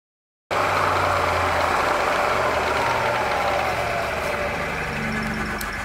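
Milling machine running with an end mill cutting a serration into a metal part: a steady machining noise with a low hum that cuts in suddenly about half a second in. A faint whine falls slowly in pitch partway through, and the noise eases a little toward the end.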